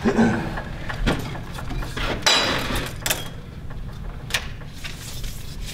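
Scattered sharp knocks and clicks of hand work with tools and building materials, about five in all, with a short rustle a little over two seconds in.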